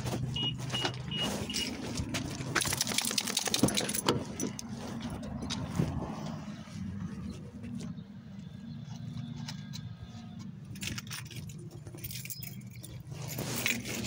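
A car door being opened, with metal jangling and clicks throughout, and four short high beeps in the first two seconds.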